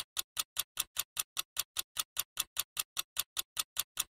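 A clock-like ticking sound effect: evenly spaced sharp ticks, about five a second, with dead silence between them, stopping abruptly near the end.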